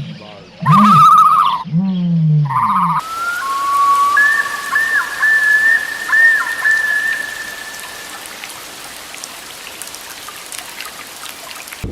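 A cat meowing several times in the first three seconds, then an abrupt change to a steady rain-like hiss with a wavering whistling tone over it.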